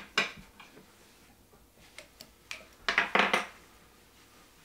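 Small clicks and scratchy handling sounds from hand work at a fly-tying vise as the thread is tied off, with a brief cluster of louder scratches about three seconds in.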